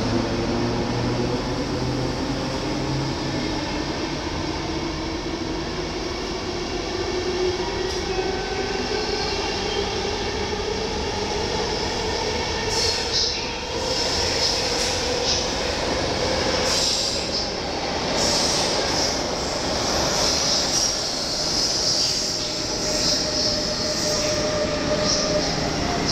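Intercity passenger train pulling out of an underground station, its coaches rolling past with a whine that rises slowly in pitch as it picks up speed. From about halfway on, high wheel squeal comes and goes.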